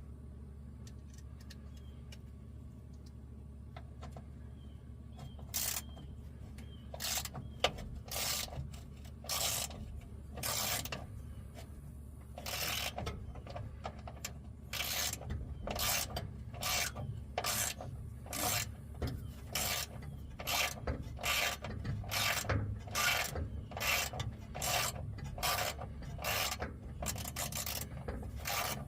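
Hand ratchet being worked back and forth to back out bolts: short rasping click-strokes, a few scattered at first, then a steady run of about two strokes a second from the middle onward. A steady low hum sits underneath.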